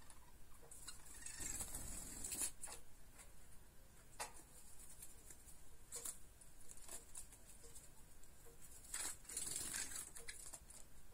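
Quiet scattered taps, scratches and feather rustles from young java sparrows moving about on a ledge, with a longer rustle about two seconds in and another about nine seconds in.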